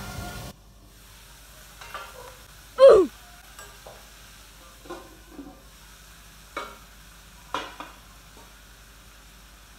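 A spatula stirring and scraping in a frying pan, with food sizzling faintly and a few short clinks against the pan. About three seconds in, one loud short cry falls in pitch.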